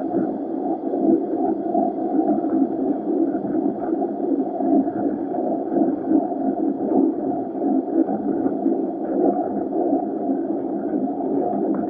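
LSWR O2 class 0-4-4 tank locomotive W24 'Calbourne' running along the line, heard from a camera mounted outside on its side: a steady rumble that rises and falls unevenly, with wind on the microphone.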